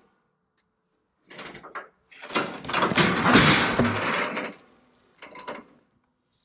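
Pine logs rolling off a trailer deck after the straps are cut loose: a short rumble, then a loud rumble lasting about two and a half seconds, then one more short one.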